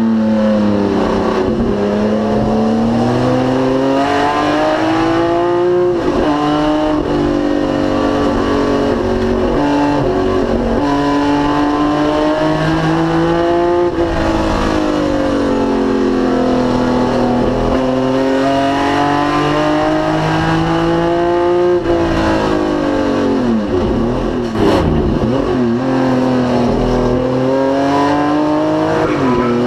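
Racing BMW 3.0 CSL's straight-six engine under hard acceleration, the revs climbing steadily and dropping sharply at each upshift, three times. Around the braking zones, near the start, about 24 s in and near the end, the revs fall and flick up again in quick blips on the downshifts.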